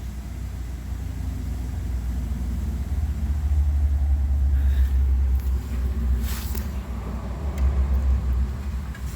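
Wind rumbling on the microphone, unsteady and strongest from about three seconds in, with a brief rustle about six seconds in.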